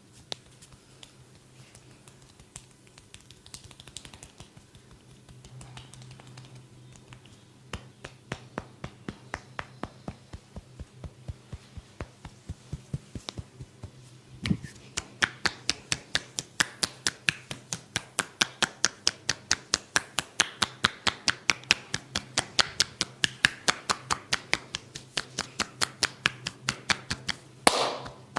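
Hands striking a body in rapid percussive massage strokes, sparse and light at first, then a fast, even run of louder slaps from about halfway. A single heavier thump comes just before the fast run, and a louder, longer slap comes near the end.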